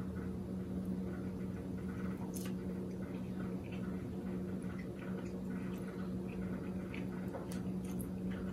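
A person eating soft steamed rice cake in coconut cream: quiet chewing and squishy mouth sounds, with a few faint light clicks of a spoon and fork against a plate, over a steady low hum.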